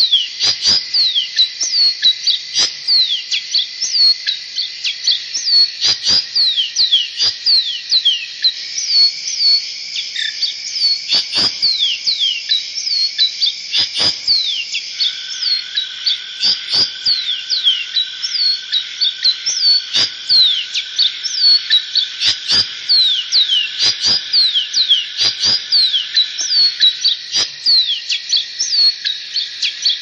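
Small songbirds chirping over and over in quick falling notes, a few a second, over a steady high-pitched ringing drone.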